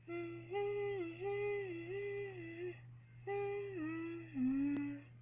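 A high voice humming a short tune in two phrases of held notes that step up and down, the second phrase ending on a lower note. A faint steady electrical hum sits underneath.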